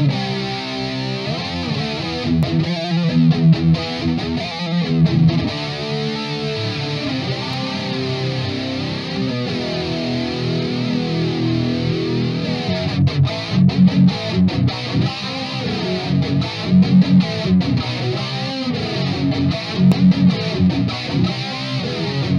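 Electric guitar riffing through a Crate GT-200 amplifier head, distorted by a Boss SD-1 overdrive pedal, with the amp's chorus effect on.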